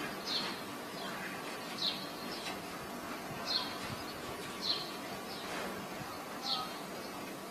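A bird chirping: five short, high calls, each falling slightly in pitch, spaced about a second and a half apart over a steady background hiss.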